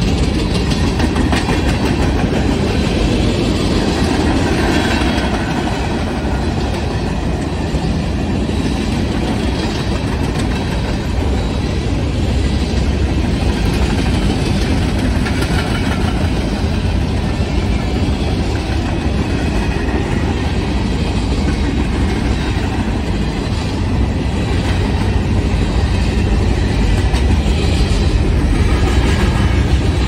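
Freight train cars rolling past: steel wheels running on the rails in a steady, continuous noise.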